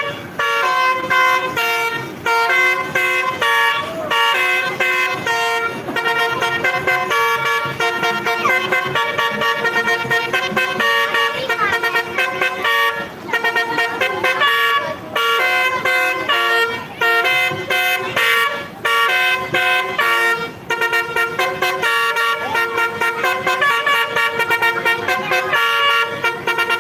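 Basuri V4 telolet horn, a multi-tone bus horn, playing a fast melody of short changing notes in phrases, with a few brief pauses.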